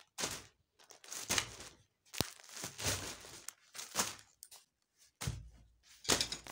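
Plastic courier mailer bags crinkling and rustling in a series of separate handlings as parcels are set down one after another on a fabric sofa, with a sharp click a little after two seconds and soft thuds as parcels land near the end.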